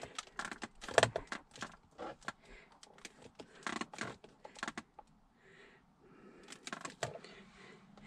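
Small plastic brake-controller unit and dash trim handled by hand under the dashboard: a run of irregular small clicks, taps and rustles, the loudest about a second in.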